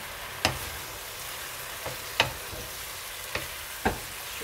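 Sliced leeks, red peppers, onions and aubergine sizzling in oil in a frying pan as a wooden spoon stirs them. The spoon knocks against the pan about five times, sharpest about half a second and about two seconds in.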